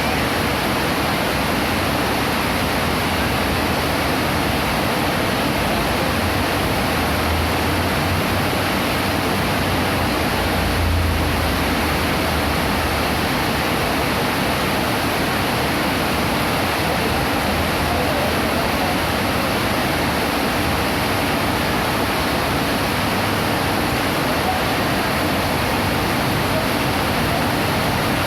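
Heavy rain pouring steadily, a dense, even hiss. A brief low rumble comes about a third of the way in.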